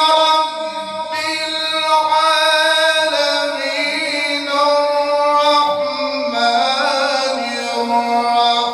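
A man's melodic Quran recitation: one voice holding long, ornamented notes and moving from pitch to pitch.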